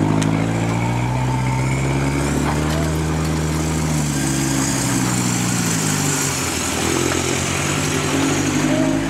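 Engine of a lifted first-generation Toyota 4Runner crawling along a dirt trail at low speed, its pitch rising and falling as the throttle is worked.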